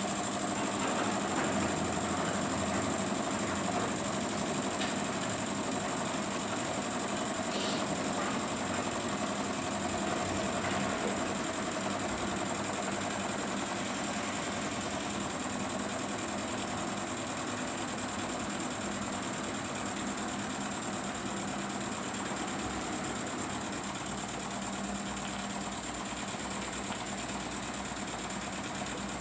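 Jensen #75 toy steam engine running steadily, its single piston and flywheel driving a small DC motor as a generator. It is a continuous light mechanical clatter with hiss, growing slightly quieter over time.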